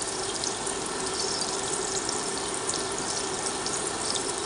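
Minced garlic sizzling steadily in hot oil in a frying pan, a constant hiss with faint crackles.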